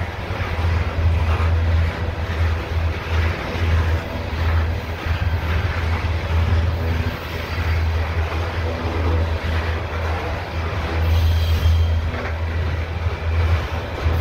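Loaded CSX coal hopper cars rolling past: a steady rumble of steel wheels on rail with a low drone underneath.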